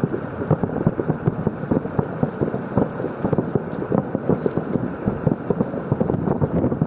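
Distant fireworks going off in rapid succession, a dense run of short pops and crackles several a second.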